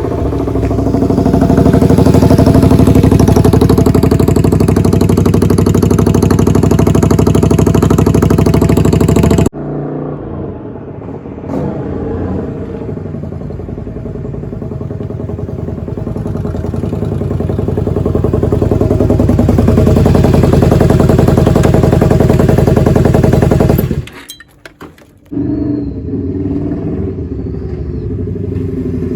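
Honda V-Twin Magna 250's V-twin engine running through drag-pipe exhausts fitted with a silencer insert. It runs loud and steady, drops off suddenly about nine seconds in, then swells gradually over the next dozen seconds before breaking off briefly and starting again near the end.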